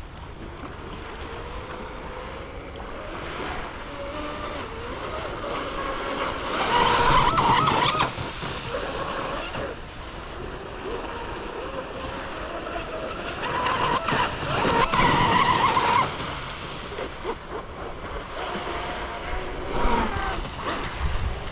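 Pro Boat Blackjack 42 RC boat's brushless electric motor whining at speed across the water, its pitch rising and falling with the throttle. It grows loud twice, about seven and fourteen seconds in, then fades as the boat runs further off.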